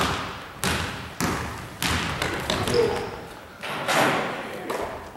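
Basketball bouncing on a wooden gym floor: about seven hard thuds at irregular spacing, each ringing on in the echo of the hall.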